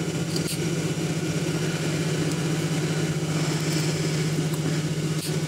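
Steady electric motor hum, with a few faint snips of scissors notching the seam allowance of a fabric neckline.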